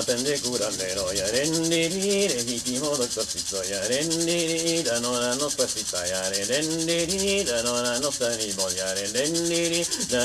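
An icaro, the sung healing chant of an ayahuasca ceremony, sung by a single voice in a slow melody of held notes that slide between pitches. Under it runs a fast, steady shaking of a chakapa leaf-bundle rattle.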